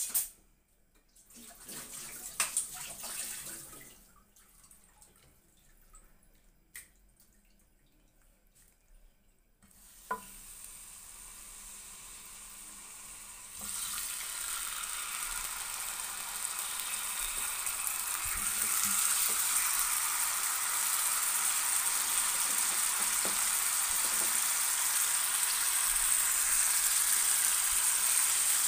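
Chicken frying in hot oil in a ridged pan: a steady sizzling hiss that builds up from about a third of the way in and grows louder in two steps. A few short knocks and rustles of handling come in the first seconds.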